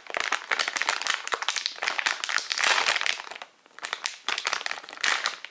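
Crinkling of a silvery anti-static shielding bag holding a Raspberry Pi board, handled and worked at by the fingers: a dense run of crackles that lets up briefly about three and a half seconds in, then starts again.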